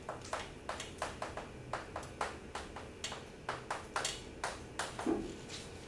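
Chalk writing on a chalkboard: a quick run of short taps and scratches, about three or four strokes a second.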